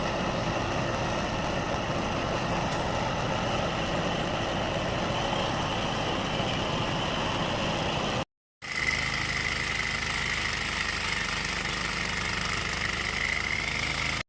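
An engine-driven machine running steadily. It breaks off for a moment about eight seconds in, then carries on with a steady high whine on top.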